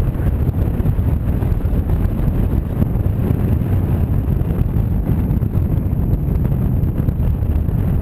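Steady loud wind rumble on the microphone of a camera mounted on a moving pedal car, mixed with the rumble of the car rolling over the tarmac track.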